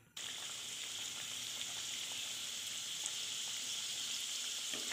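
Maida-dough pastry with a coconut filling deep-frying in hot oil: a steady, even sizzle that starts suddenly, with a few faint pops.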